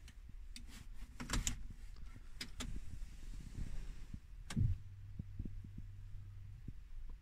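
A car key going into the ignition lock with a series of small metallic clicks and rattles. The key is then turned with a sharp click, followed by a low, steady hum lasting about two seconds as the ignition comes on.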